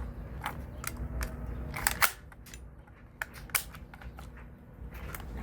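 Irregular light clicks and taps of parts being worked and fitted on a Tippmann Air Raid AR6BB airsoft rifle during reassembly, about seven or eight sharp clicks with a quieter stretch in the middle.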